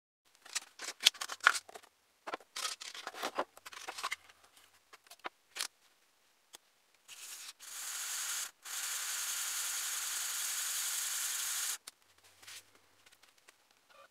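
A cast resin ashtray being sanded by hand on sandpaper over a glass plate. First come scattered scratchy strokes and knocks, then about four seconds of steady sanding hiss with one short break.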